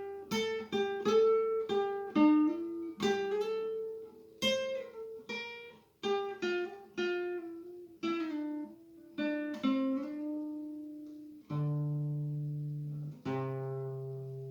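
Acoustic guitar played note by note in a picked melodic run that slows as it goes. It ends on two chords, each left to ring and fade.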